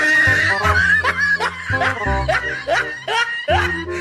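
Music with a repeated snickering laugh over it, a run of short rising yelps.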